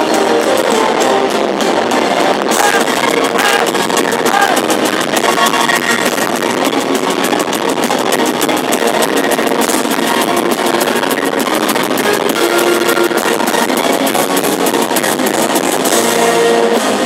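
Symphonic metal band playing live at full volume, heard through a phone microphone in the crowd, loud and thin with little bass.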